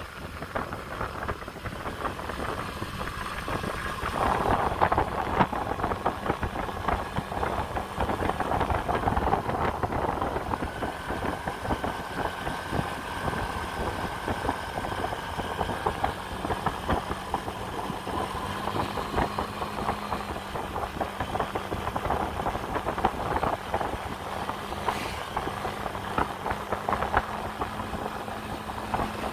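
Honda Dio AF68 scooter's air-cooled four-stroke engine running steadily while riding at around 20 to 30 km/h.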